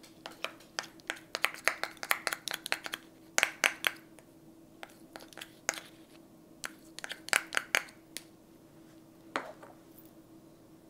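A spoon scooping Greek yogurt and knocking and scraping it off into a food processor bowl: two runs of quick clicks and taps, then a few more near the end.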